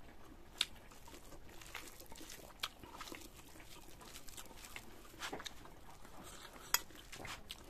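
Close-up mouth sounds of a man eating rice by hand: faint chewing and wet smacks, with three sharp clicks, just after the start, about two and a half seconds in, and a second before the end.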